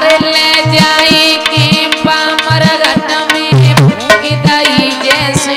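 Instrumental music interlude: tabla playing a fast, steady rhythm with bending bass strokes, under a melody instrument holding long notes.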